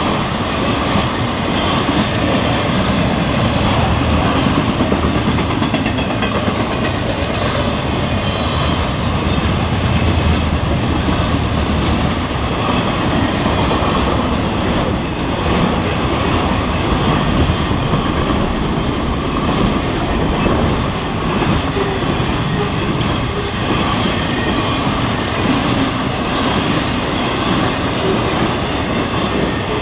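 Long freight train of flatcars carrying truck trailers rolling past at speed: a steady rumble and clatter of steel wheels on rail.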